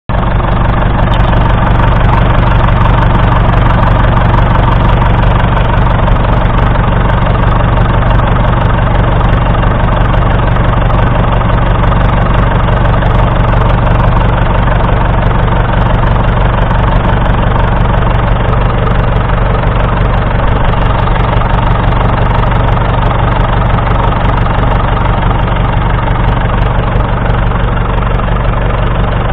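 Perkins P4 four-cylinder diesel engine in a 1942 Fordson Model N tractor, running steadily at idle.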